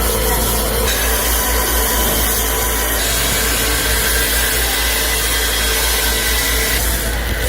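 A power tool working on metal, giving a loud, steady noise. Its tone shifts about a second in, again about three seconds in, and near the end.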